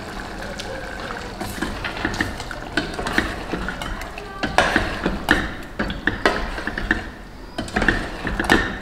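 A spoon stirring paneer curry in a stainless-steel pot, clinking and scraping against the pot's sides again and again, with the clinks coming thicker in the second half.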